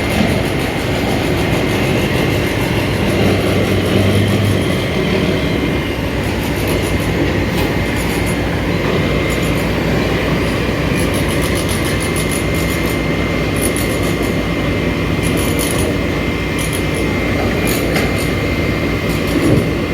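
Heavy diesel construction machinery running steadily, with a constant high whine and repeated metallic clanking and rattling over the engine.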